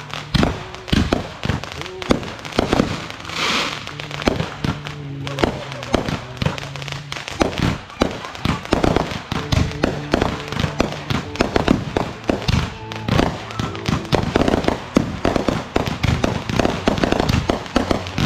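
Consumer fireworks going off in a long string of sharp bangs and pops, coming thicker toward the end, with a short hissing crackle about three and a half seconds in.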